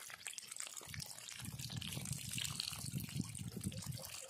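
Water splashing and trickling, with many small irregular ticks; an uneven low rumble joins in from about a second and a half in.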